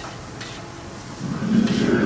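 Stir-frying in a wok over a high-powered gas burner: a steady sizzle, then a low, steady roar swells up a little over a second in as mushrooms go into the wok.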